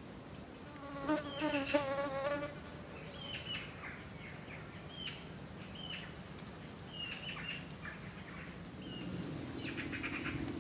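A flying insect buzzing close by, wavering in pitch for a second or so about a second in. After it, a small bird calls in short, high, falling chirps repeated every second or so, and a steady buzz comes back near the end.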